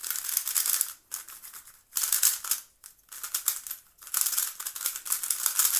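Magnetic 3x3 speed cube being turned fast, in four quick runs of rattling, clicking layer moves with short pauses between them. The cube has just been retensioned, with its springs more compressed and its magnets feeling stronger.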